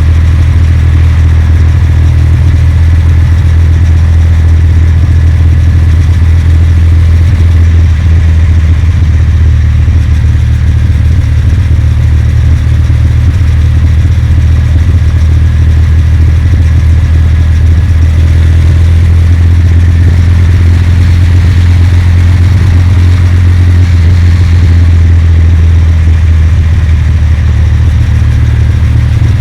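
Kawasaki W800's air-cooled parallel-twin engine running at a steady cruise, mixed with heavy low wind rumble on the microphone.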